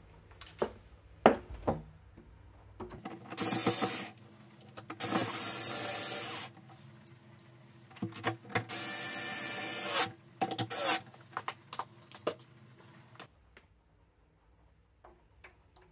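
Cordless electric screwdriver running in three short bursts of about a second each, driving in the screws that hold a door-handle rose support plate. Clicks and taps of handling the screwdriver and plate come before and between the bursts.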